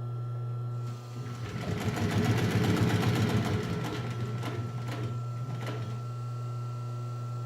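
Pfaff 545 H4 industrial walking-foot sewing machine: its clutch motor hums steadily, then about a second in the machine engages and runs a fast burst of stitches through three layers of stiff heavy canvas. It stops after a couple of seconds, leaving a few single clicks over the motor's hum.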